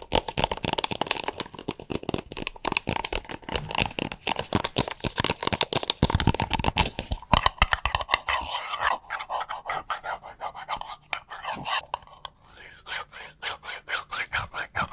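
Rapid, crisp tapping and scratching on a small hand fan and a standee clip, as ASMR triggers: many quick taps a second, turning about halfway through into a lighter, scratchier pattern.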